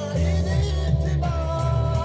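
A recorded song playing: a singing voice holds long, steady notes over a steady bass line.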